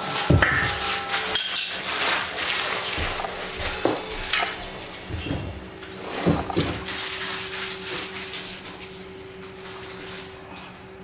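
Metal projector-screen frame sections being handled and fitted together, giving irregular clinks and knocks as the pieces touch. A steady low hum runs underneath.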